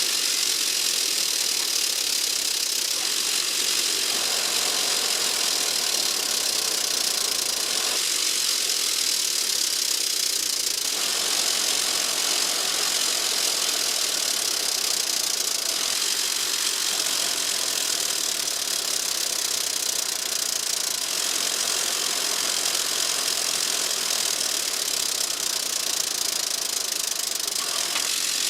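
Hammer blows forging a hot steel block into an axe head, played at triple speed so the strikes run together into a rapid, continuous clatter.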